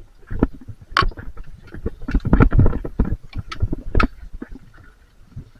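Irregular knocks and clatter with rough rustling noise in between, the sharpest knocks about a second in and about four seconds in.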